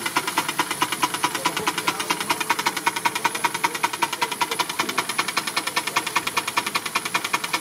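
Small live-steam model engines running on steam from a vertical boiler: a rapid, even chuffing beat.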